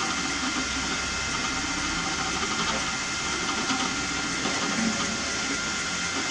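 Creality 3D printer running a print in its last minutes: a steady mechanical whir with a few faint, thin steady whines.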